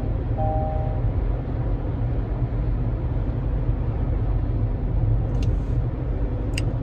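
Steady low road and engine rumble inside a moving car's cabin. A short two-note electronic beep sounds once, about half a second in.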